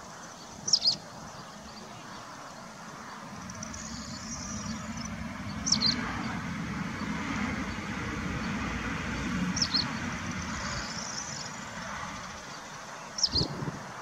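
A bird's short, sharp chirp repeated four times, about every four seconds, with softer twittering between, over a low rumble that swells up and fades away in the middle.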